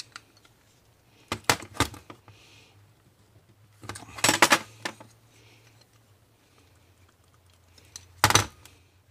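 Metal clinks and clatter as a screwdriver is worked into the clamp of a motorcycle rear brake arm to spread it open and the brake plate is handled on a metal workbench: two sharp clicks about a second and a half in, a louder burst of clattering around four seconds, and another short clatter near the end.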